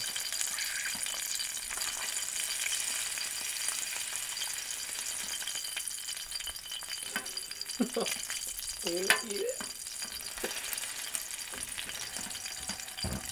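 Sea anemone frying in a hot pan: a steady sizzle of hot oil. A couple of brief voice sounds come through about eight and nine seconds in.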